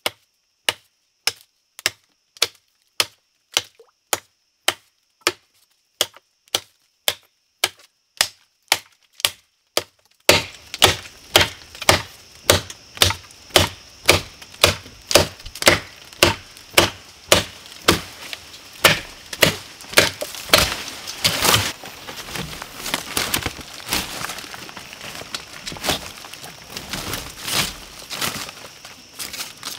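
Repeated chopping blows of a blade into wood, evenly spaced at about two a second. About ten seconds in, the background grows noisier, and after about twenty-two seconds the blows give way to quicker, irregular cracking and splintering.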